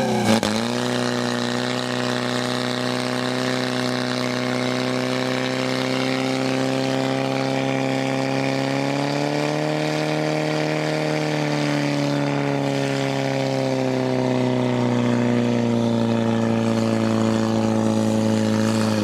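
Portable fire pump's engine running steadily at high revs while it pumps water through the hose lines to the nozzles. Its pitch lifts a little around the middle.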